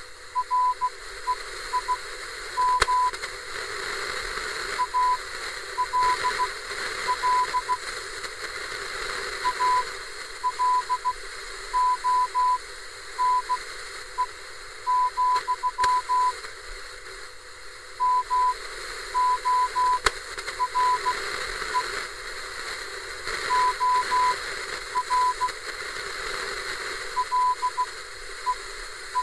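Morse code: a single high beep keyed in short and long pulses in irregular groups, over steady radio static.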